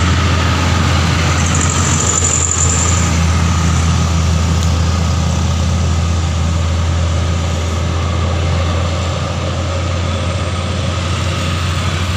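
Heavy truck engines running in a steady low drone, with motorcycle engines among them.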